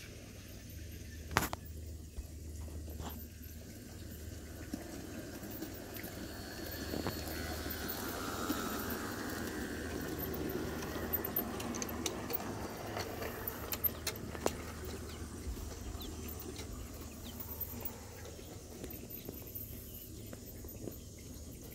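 G-scale garden-railway train, a diesel locomotive pulling boxcars, rolling along brass track. Its wheels and motor make a steady rattling rumble that grows as it passes close, around the middle, then fades. Scattered clicks run through it, and a single sharp click comes about a second in.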